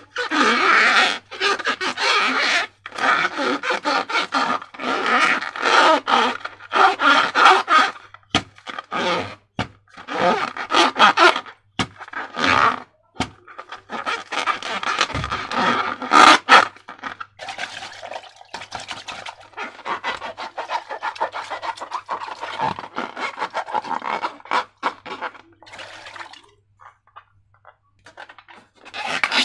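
Slime being squeezed and worked by hand: sticky, crackling squishes in many short bursts with brief pauses, a sharp click about halfway through, and much quieter in the last few seconds.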